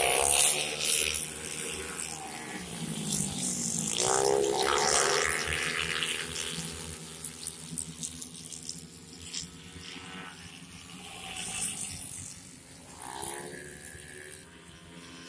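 Small race motorcycles passing at racing speed, each engine whining higher as it comes near and dropping in pitch as it goes by. Passes come at the start, around four to five seconds in, and again near the end, over a steady hiss.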